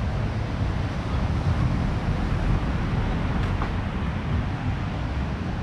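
Ocean surf washing steadily, with wind buffeting the microphone and giving a heavy low rumble.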